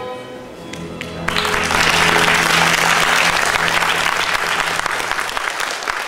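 Audience applauding, the clapping starting about a second in and running steadily, over a low held note of the recorded orchestral music.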